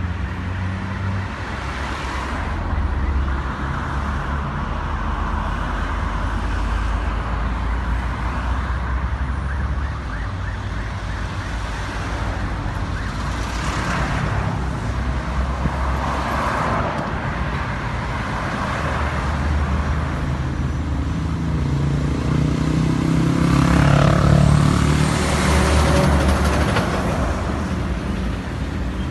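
Steady road traffic with a low engine rumble, swelling louder for a few seconds about three-quarters of the way through.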